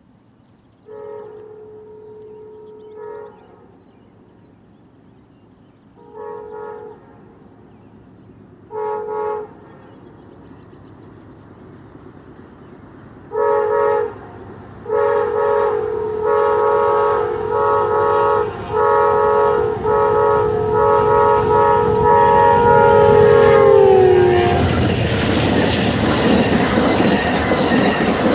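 Amtrak GE P42DC locomotive's air horn sounding a chord in a long series of short and long blasts, growing louder and closer together as the train approaches, with the chord dropping in pitch as the locomotive passes about two-thirds of the way through. Then the loud rush of the passenger train going by at speed, wheels clattering over the rail joints.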